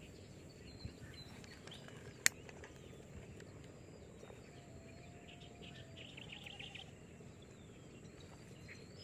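Faint outdoor ambience with scattered small-bird chirps and short whistles, and a quick rattling trill about six to seven seconds in. One sharp click a little over two seconds in stands out as the loudest sound.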